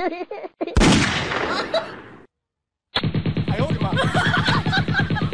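A sudden loud bang with a long fading echo, then a short silence, then music with a steady beat starting about three seconds in.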